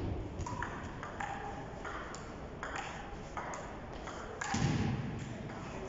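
Table tennis rally: the ball clicking off paddles and the Donic table about twice a second, each hit a short ringing pock. A louder thump comes about four and a half seconds in.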